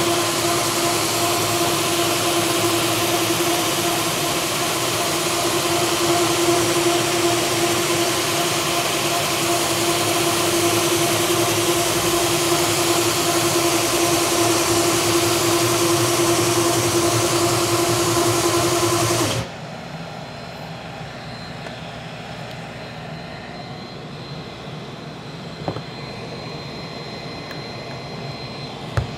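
Hybrid floor buffer with a PowerDrive ring head sanding a cupped hickory panel with 40-grit paper and no added weight, running with a steady hum. It stops abruptly about 19 seconds in, leaving a faint steady background hum and a couple of light clicks.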